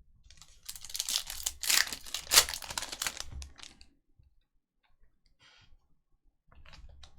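A foil trading-card pack wrapper being torn open and crinkled, a dense crackling rustle for about three seconds, then quiet with a few faint clicks and a light rustle near the end.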